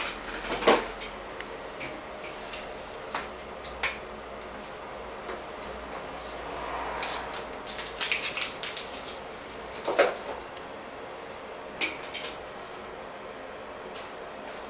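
Scattered light clinks and knocks of small hard objects being handled, with a short cluster of them about eight seconds in, over a faint steady hum.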